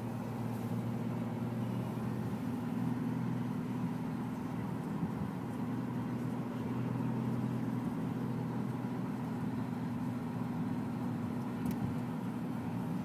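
A car driving at steady speed, heard from inside the cabin: a constant low drone of engine and tyre noise.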